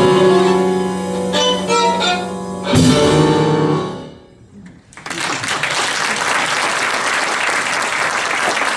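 Violin, piano and drums play the last bars of a piece, closing on one accented full-band hit about three seconds in that rings out and dies away. After a brief pause, audience applause starts and continues.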